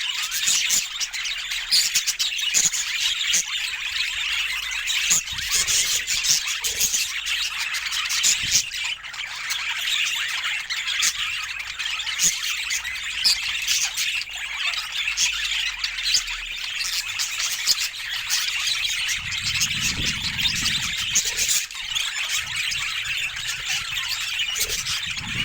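Budgerigars chattering and warbling in a dense, unbroken stream of short chirps and clicks.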